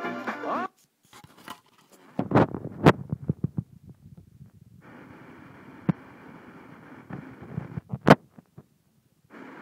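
FM radio receiver being retuned: music cuts off within the first second, then bursts of crackling static and clicks give way to a steady hiss of a weak or empty frequency. A sharp click sounds near the end, followed by a brief silence.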